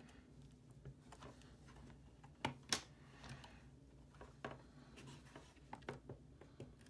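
Faint handling noise from a graphics card's reference blower cooler being worked loose by hand: scattered small clicks, taps and rubbing of fingers on the metal-and-plastic shroud, with a sharper double click about two and a half seconds in.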